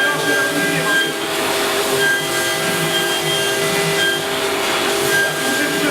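InfoTEC 3121 PRO CNC milling centre running, a steady machine whine with several held tones over a noisy hum, some of the higher tones coming and going.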